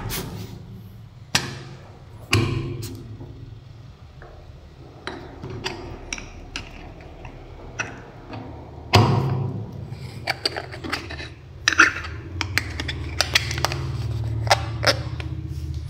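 Hand handling of a pneumatic rivet nut tool's metal cylinder and housing being wiped and screwed back together: scattered metal clicks and knocks, the loudest knock about nine seconds in, and a run of quick clicks in the second half. A low hum sits underneath the later part.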